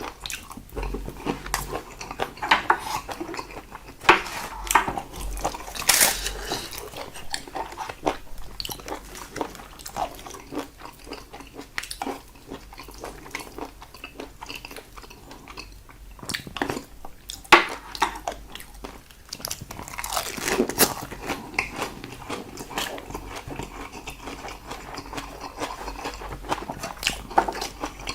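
Close-miked eating of salted seafood side dishes: irregular wet chewing, biting and mouth smacks with occasional crunches.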